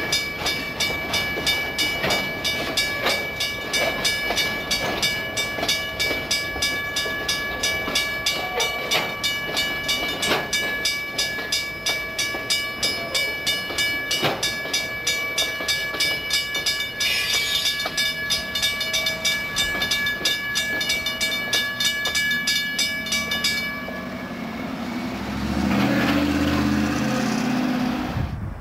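Freight train's boxcars rolling past a grade crossing, wheels clicking over the rails, with a crossing bell ringing steadily at about two to three strikes a second. The bell stops about 24 seconds in, followed by a louder low rumble near the end.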